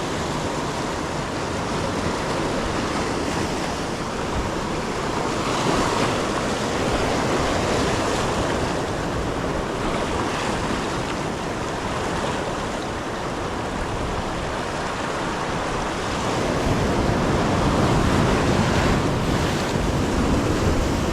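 Ocean surf washing on the shoreline, a steady rush that swells about six seconds in and again louder from about sixteen seconds.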